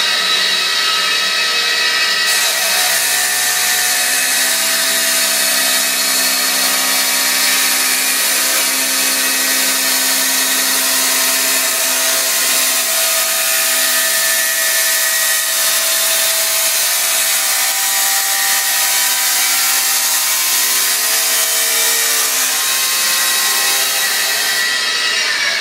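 A 220-volt electric abrasive cut-off saw runs and grinds through a steel tube, throwing sparks. It is a steady, loud screech that gets brighter about two seconds in, when the wheel bites into the metal, and starts to wind down at the very end.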